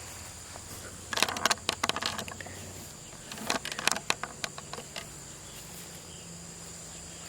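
Insects trilling steadily in the background, with two short runs of crackling clicks, about a second in and again around three and a half seconds.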